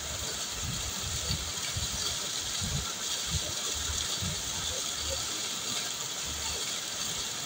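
Waterfall: a steady rush of falling water, with soft irregular low thumps underneath.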